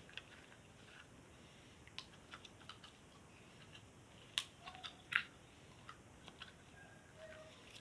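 Crunchy slime with foam bits being worked and pulled out of its plastic tub: faint scattered crackles and clicks, with sharper ones about two, four and a half and five seconds in.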